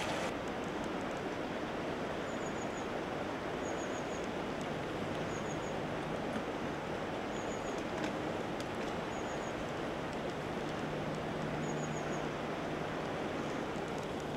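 Steady outdoor ambience with a small bird's short triple chirp repeating every second or two, and a faint low hum that comes and goes.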